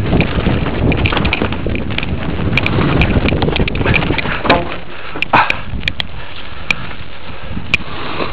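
Mountain bike riding over a rough track, with wind buffeting the action camera's microphone and frequent sharp clicks and knocks of the bike rattling. The rumble eases about halfway through, and the clicks go on more sparsely.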